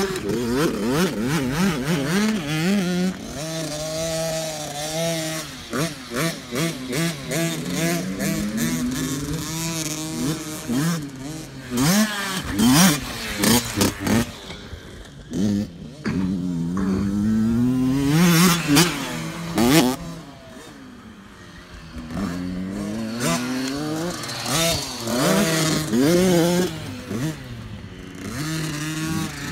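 Small kids' dirt bike engines revving up and down as they ride the track, the pitch repeatedly climbing and dropping through the gears. Bursts of rough noise come in the middle, and the engines fade briefly a little past two-thirds of the way through.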